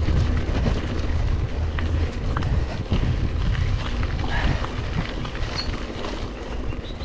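Wind buffeting a GoPro's microphone while mountain biking, over the noise of the tyres on the track and small clicks and rattles from the bike. The low wind rumble is strongest at first and eases after about two and a half seconds.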